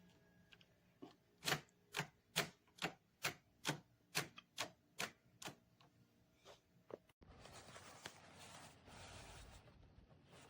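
About a dozen sharp, evenly spaced clicks, a little over two a second, fading out about seven seconds in. They are followed by an abrupt change to a steady hiss.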